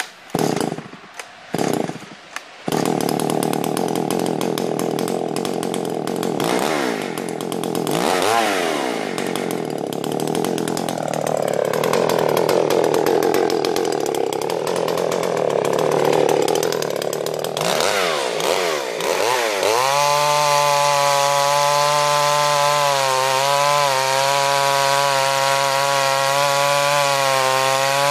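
Solo 50 two-stroke chainsaw pull-started, catching after a few pulls, then running with short blips of the throttle and a speed that wanders up and down. About twenty seconds in it goes to a steady high full-throttle note as it cuts through a log.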